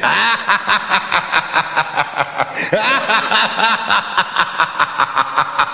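A drawn-out cackling laugh, a steady run of quick ha-ha pulses about four a second, with a few swooping pitch rises and falls.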